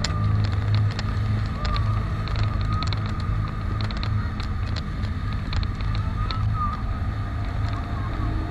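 An engine running steadily with a low hum, with scattered light clicks or rattles.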